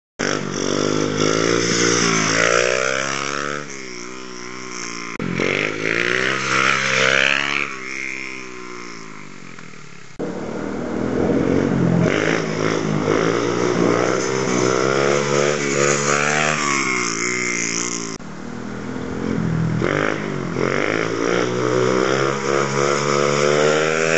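Small dirt bike's engine revving as it accelerates, its pitch climbing and dropping again and again. The sound changes abruptly about ten and eighteen seconds in.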